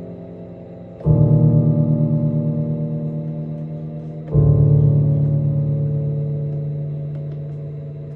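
Electronic music: sustained electric-piano-like chords, a new one struck about a second in and another about four seconds in, each fading slowly with a slight wavering in level.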